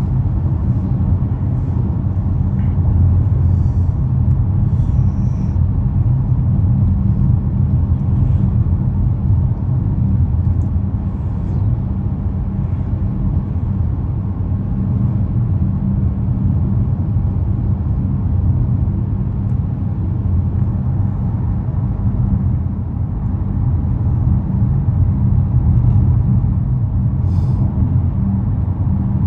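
Steady low rumble of a car driving, road and engine noise with no change in pace.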